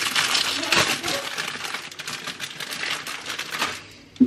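Plastic crumpet packaging crinkling and rustling as the bag is opened and a crumpet pulled out, a dense crackle that dies away near the end. A single sharp knock follows at the very end.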